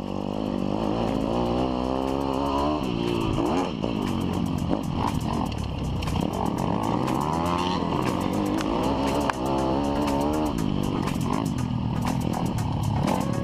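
Single-cylinder pit bike engine revving hard and easing off over and over while the bike is ridden on a dirt track, its pitch climbing and dropping with the throttle and gear changes. Frequent short clattering knocks ride over it.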